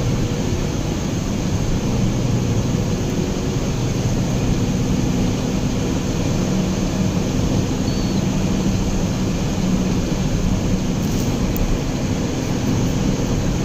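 A car driving on a highway, heard inside the cabin: a steady low drone of road and engine noise with a faint hum.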